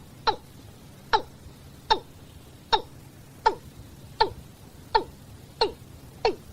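Watercock giving its flock-gathering call: a series of short, hoarse notes, each dropping slightly in pitch, repeated about every three-quarters of a second and coming a little faster near the end.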